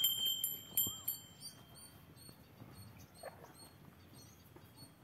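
Small birds chirping in short, high calls, busiest in the first second and thinning out after.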